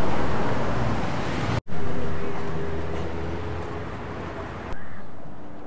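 Outdoor street ambience with traffic noise, broken by abrupt cuts every couple of seconds; each stretch starts loud and fades away.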